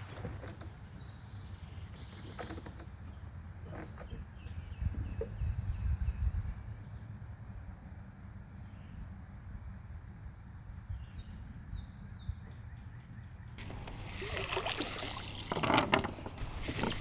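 Insects chirping in a fast, steady high pulse over a low wind rumble on the microphone. Near the end come a few knocks and rustles.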